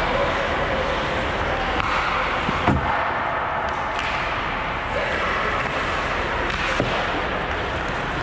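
Ice hockey play in a rink: a steady wash of skating and arena noise with faint voices, broken by a sharp knock about three seconds in, the loudest sound, and a lighter knock near seven seconds, typical of a stick or puck striking.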